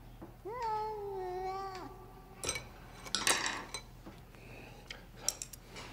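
A single long meow, about a second and a half, rising at the start, then held and sagging slightly. It is followed by a few sharp clinks and clatters of chopsticks against a ceramic bowl.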